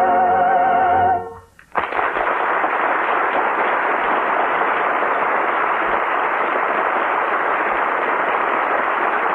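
The final held chord of a sung operetta number, with vibrato, ends about a second in. After a brief gap, a studio audience applauds steadily.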